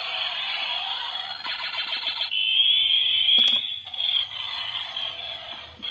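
Battery-powered toy fire-rescue helicopter playing high-pitched electronic alarm-like sound effects, with a held high tone starting about two seconds in.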